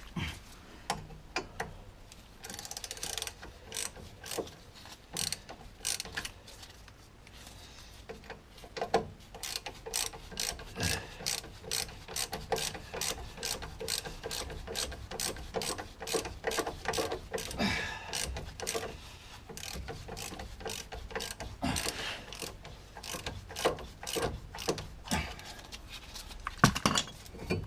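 Hand socket ratchet clicking in quick, irregular runs as it unscrews the T55 Torx bolts of a front brake caliper carrier bracket.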